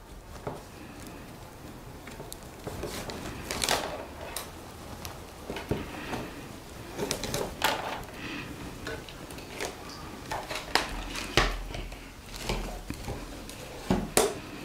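Soaked willow rods rustling, scraping and clicking against each other as a new rod is woven over and under the ribs of a basket, with irregular light taps.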